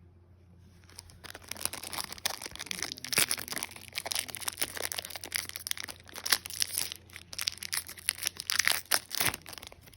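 Crinkling and rustling of a Pokémon booster pack's foil wrapper and its cards being handled, a rapid run of crackles that starts about a second in and stops just before the end.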